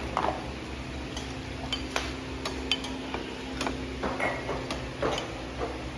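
Metal utensils clinking and scraping against dishes or cookware in irregular light clicks, over a steady low hum.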